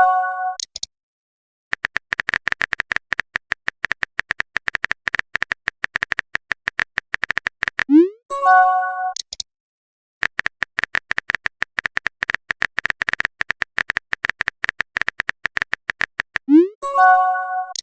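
Messenger sound effects: a fast run of typing taps lasting several seconds, then a short rising swoop and a bright chime as a message is sent. The cycle happens twice, with a second chime at the very end.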